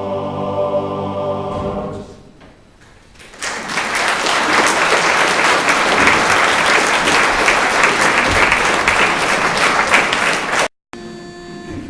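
Barbershop chorus ending a song on a held chord that fades out, then after a brief pause audience applause for about seven seconds, which cuts off suddenly near the end.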